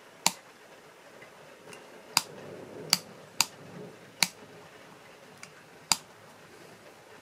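A two-way rocker switch on a homemade remote control clicked over and over, six sharp clicks at uneven gaps with a faint tick between two of them, starting and stopping a nixie-tube stopwatch.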